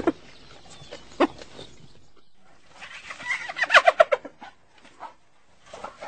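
Spotted hyena calling: two short yelps, then about three seconds in a rapid run of high, clucking cackle notes.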